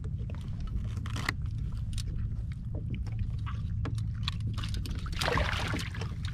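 Ambient sound on a fishing kayak at sea: a steady low rumble, with many small clicks and knocks scattered through it and a brief rush of noise about five seconds in.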